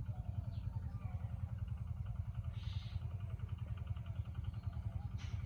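Village ambience: a steady, fast, low thudding like a small engine running, with birds chirping above it and a short hiss about two and a half seconds in.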